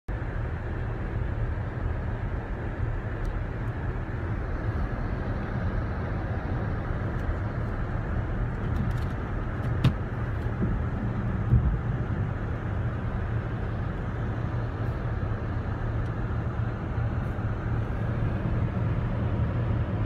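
Steady road and engine noise heard inside a car's cabin as it drives down a snow-covered mountain road, with two short knocks about ten and eleven and a half seconds in.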